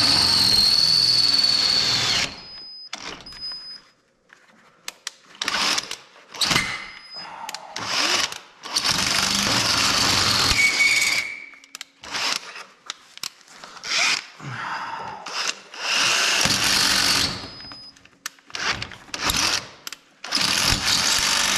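Cordless drill boring into a concrete-and-steel workbench through a vise base's bolt hole, run in repeated bursts of one to three seconds with short pauses between. A thin squeal near the start, and another about eleven seconds in.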